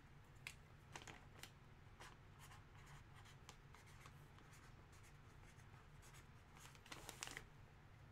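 Near silence: room tone with a low steady hum and faint, scattered light clicks and scratches, a few slightly louder ones about seven seconds in.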